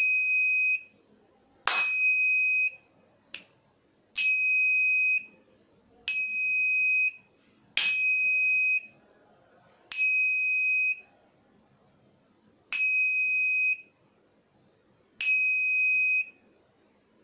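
An electronic beeper sounding eight times, each beep a high steady tone about a second long, starting with a click and repeating roughly every two seconds.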